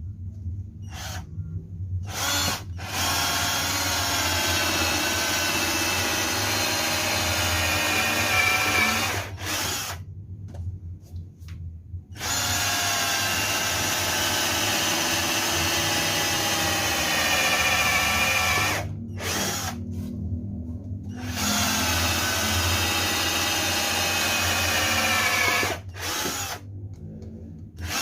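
Cordless drill (Maktec MT081 on an 18V lithium-ion battery) running at speed in three long bursts of several seconds each, the trigger released between them, then starting again just before the end. The motor gives an even, high whine.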